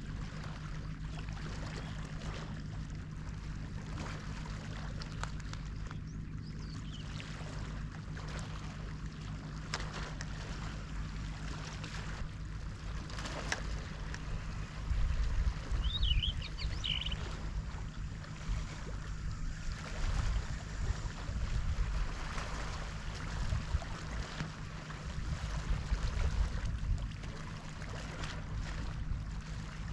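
Outdoor ambience of water sloshing and wind gusting on the microphone over a steady low hum, with a couple of short bird chirps about halfway through.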